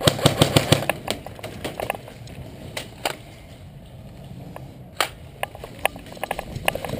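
Footsteps of a person moving on a dirt path strewn with leaves, with the clatter of carried gear, as separate knocks about every half second. A quick run of sharp clicks fills the first second.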